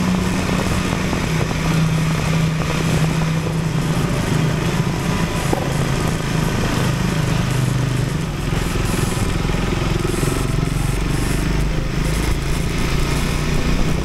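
Husqvarna Svartpilen 401's single-cylinder engine running steadily through its Leo Vince LV-10 exhaust as the motorcycle is ridden, with a deeper rumble for a few seconds past the middle.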